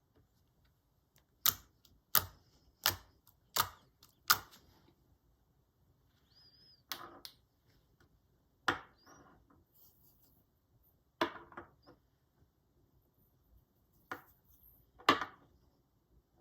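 Slime being pressed and stretched by hand, making sharp pops and crackles as trapped air bursts. Five pops come in a row about two-thirds of a second apart, then single pops and short crackles follow at irregular gaps.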